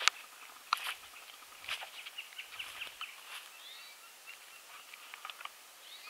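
Small birds calling, a scatter of short high chirps with a few rising whistled notes a little past the middle. Sharp snaps or clicks cut in right at the start and twice more in the first two seconds, louder than the birds.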